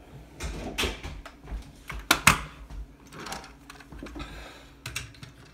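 A run of irregular knocks, clicks and rustles from things being handled, the sharpest pair about two seconds in.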